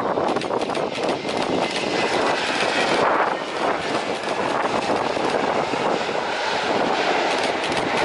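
Airbus A320 jet airliner landing and rolling out on the runway, its engines giving a loud, steady rushing noise mixed with gusty wind buffeting the microphone.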